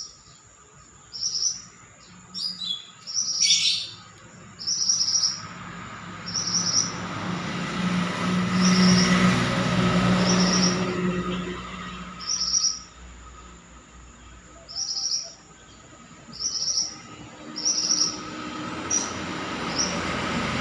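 Mantenan songbird calling in full voice: short, sharp, high chirps repeated about once a second, with a quick trill a few seconds in. A passing vehicle's hum swells and fades in the middle.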